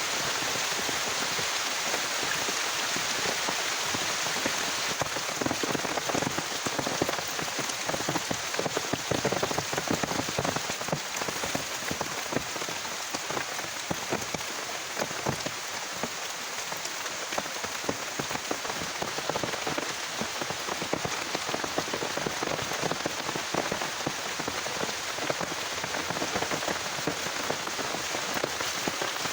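Heavy rain falling steadily, a dense hiss of rain with many individual drops striking close by.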